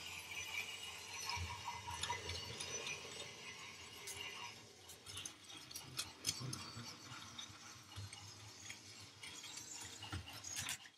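Imaginarium Power Rails battery-powered toy train engine running along plastic track: a faint whir of its small geared motor with light scattered clicks and ticks, fading a little about halfway through.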